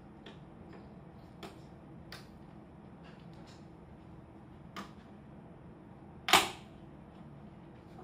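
Small clicks and knocks of parts being handled inside an open desktop PC case as the CPU fan is fitted back onto the processor, with one much louder sharp snap about six seconds in, over a faint steady hum.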